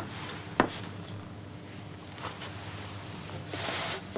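Quiet room with a steady low electrical hum, a single sharp knock about half a second in, and a soft rustle near the end.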